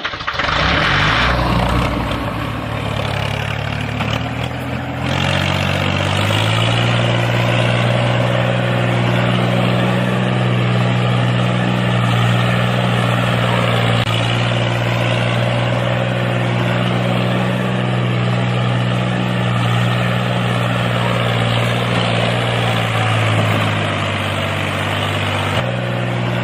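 Tractor engine running steadily, its low note shifting a little about two and six seconds in and again near the end.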